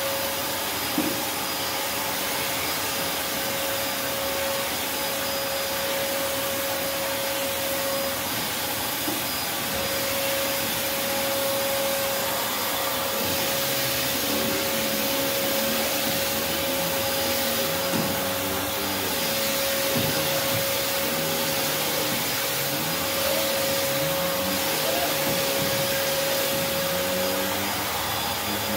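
Prolux X8 Elite backpack vacuum running steadily: a constant rush of air with a steady motor whine, and a few light knocks of the cleaning tool.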